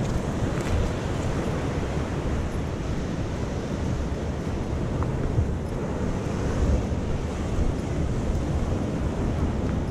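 Sea surf washing onto the shore in a steady wash, with wind rumbling on the microphone.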